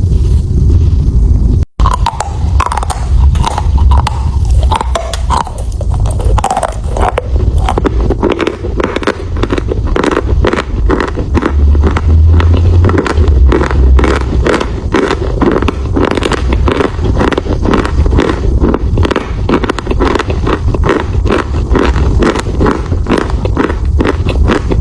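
Close-miked biting and chewing of chalk: rapid, crisp crunches and crackles, many a second, over a low rumble of mouth and microphone noise. The sound breaks off for a moment near the start.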